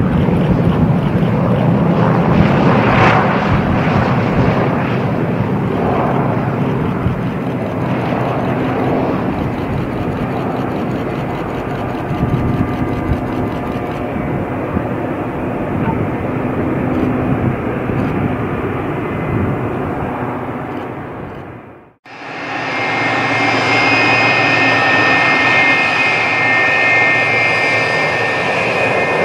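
A Douglas DC-3/C-47's twin radial piston engines run loud as the aircraft rolls along the runway, slowly fading as it moves off. About twenty-two seconds in, the sound cuts to an MD-83 airliner's rear-mounted turbofans, which give a steady high-pitched whine over a low rush.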